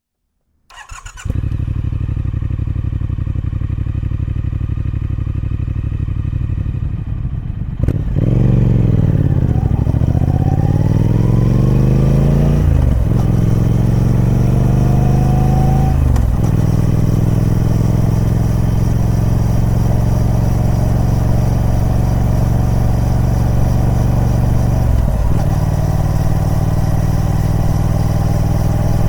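Triumph Speed Twin 1200's 270-degree parallel-twin engine on its stock exhaust, starting up and idling for several seconds. About eight seconds in it pulls away and accelerates, the revs rising and dropping at gear changes about five, eight and seventeen seconds later, then runs steadily under way.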